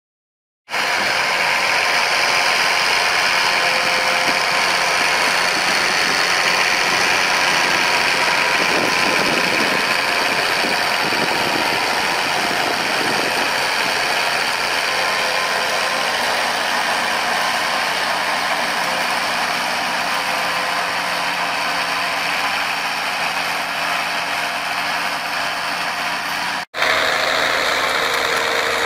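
Massey Ferguson MF 1078 tractor, fitted with a new engine, running steadily under load as it pulls a disc harrow through the field. The sound starts about a second in and drops out for an instant near the end.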